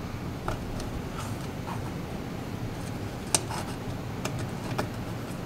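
A few faint, scattered clicks and taps of a small plastic light housing and its gasket being handled and pressed into place against a car's sheet-metal lid, one sharper click a little over three seconds in, over a steady low background noise.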